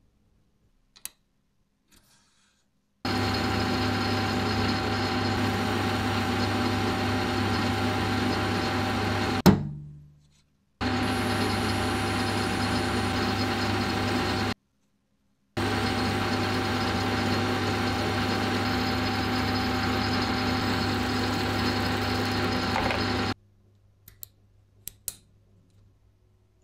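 A metalworking machine tool's motor running steadily with a hum and a higher whine, in three stretches that start and stop abruptly. About nine and a half seconds in there is a sharp knock, and the sound dies away over about a second.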